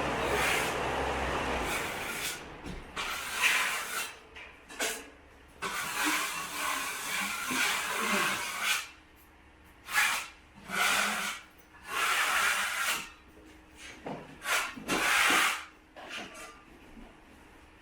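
Repeated scraping strokes of a drywall tool spreading joint compound, each lasting under a second to a couple of seconds, with short pauses between them. A low rumble runs under the first two seconds.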